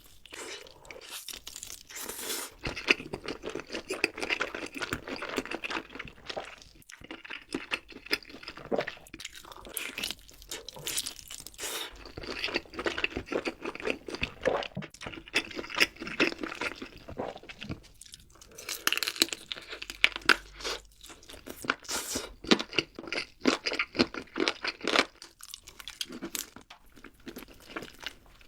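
Close-miked eating of crispy fried food: repeated crunching bites and chewing, with a few short pauses between mouthfuls.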